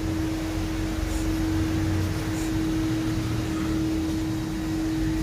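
A steady mechanical hum: one constant tone over a low rumble, unchanging throughout.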